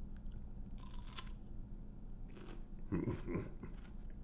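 A fresh Bhut x Neyde Red hot pepper bitten in half: a crisp, juicy crunch about a second in, followed by chewing. A short low murmur from the eater comes around three seconds in.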